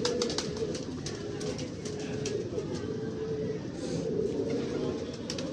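Domestic pigeons cooing, many low overlapping coos making a steady background murmur, with a few light clicks near the start and again near the end.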